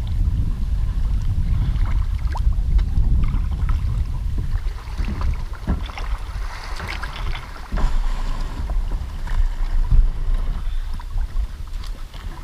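Small boat being paddled on a river. A low rumble of wind buffets the microphone, with water splashing and scattered knocks throughout, and a burst of splashing around the middle.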